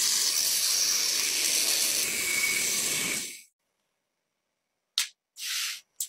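Rusty metal rod spun in a drill chuck against a sanding sponge: a steady abrasive hiss that stops sharply a little after three seconds in. Near the end come a click, a short scrape and another click.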